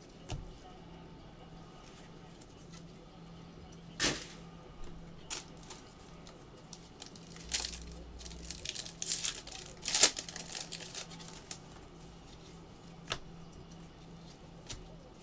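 Foil trading-card pack wrappers being torn open and crinkled as cards are handled: a sharp rip about four seconds in, a busy stretch of crinkling and tearing in the middle with the loudest rip around ten seconds in, and another short rip near the end.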